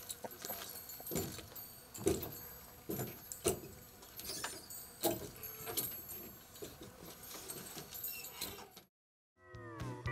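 Boot footsteps on a wooden porch and steps: several separate treads, knocks about a second apart, with a light metallic jingle. Near the end there is a brief silence, then guitar music starts.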